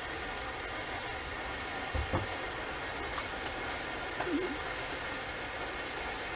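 Steady hiss with a soft thump about two seconds in, then a few faint taps as hands pat aftershave onto the face.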